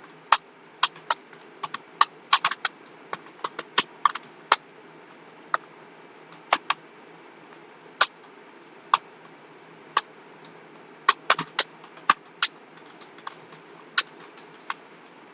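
Computer keyboard typing in uneven spurts: quick clusters of keystrokes in the first few seconds, then scattered single keystrokes with pauses between them, over a steady low background hiss.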